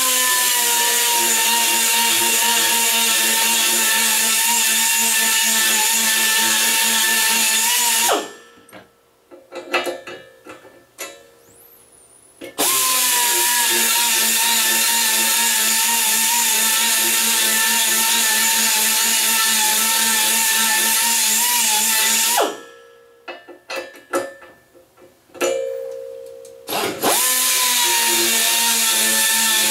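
Handheld electric power tool hogging out the bolt holes in a welded steel grinder-stand plate, running in three long bursts with short pauses between. Its steady whine dips slightly in pitch as each burst settles in.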